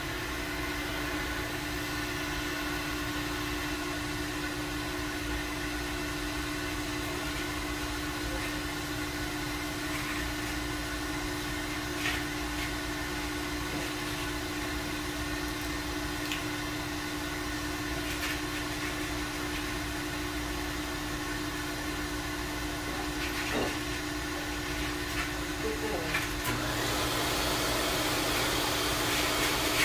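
Pet grooming stand dryer running steadily, a motor hum with a rush of air, kept going gently to get a timid dog used to the sound. About 26 seconds in, a louder hiss of air joins as the louder hose dryer is switched on, with a few small knocks of handling along the way.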